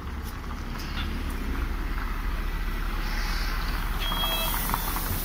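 City bus idling at the stop with its doors open, a steady low engine rumble. An electronic beeping signal starts about four seconds in.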